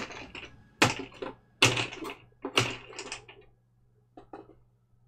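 Knocks and clatter of hard objects being moved about while someone rummages: four loud knocks roughly a second apart, then two faint clicks near the end.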